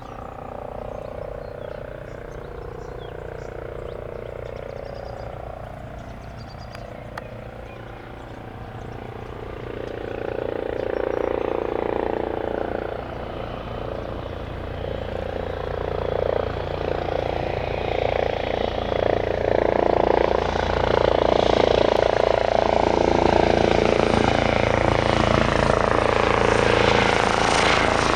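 Eurocopter EC135 twin-engine helicopter approaching to land, the sound of its rotor and turbines growing steadily louder from about ten seconds in.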